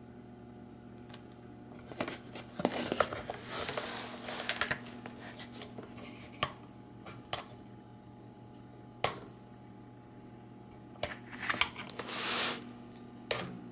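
Handling noise from a homemade wire-embedding bar and a charger's clip lead on a wooden frame: scattered sharp clicks and taps with several short scraping or crackling bursts, the loudest near the end, over a faint steady hum.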